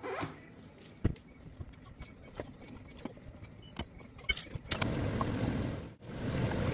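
Scattered light knocks and taps as a cardboard cake-pan box is handled and a crumb base is pressed into a square springform pan with a spatula. About three-quarters through, a steady low rumbling noise takes over, with a brief dropout near the end.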